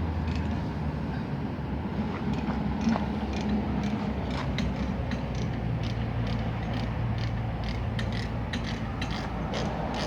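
Excavator's diesel engine running steadily, its pitch rising slightly about four seconds in, with irregular metallic clanking and creaking that comes more often toward the end.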